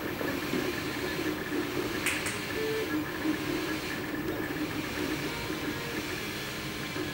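MakerBot FDM 3D printer printing: its stepper motors whir in shifting tones as the extruder head travels back and forth, over a steady hiss. Two short clicks come about two seconds in.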